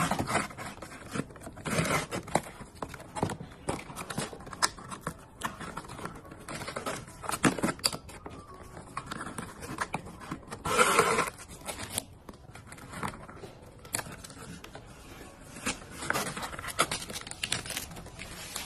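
Handling noises: a cardboard box and a plastic ribbon rustling and scraping in short irregular clicks as hands tie the ribbon around the box. A louder burst of noise comes about eleven seconds in.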